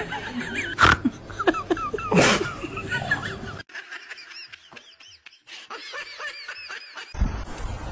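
Laughter in short repeated bursts. About halfway through it drops to quieter, higher-pitched giggles. Near the end a loud low rushing noise comes in suddenly.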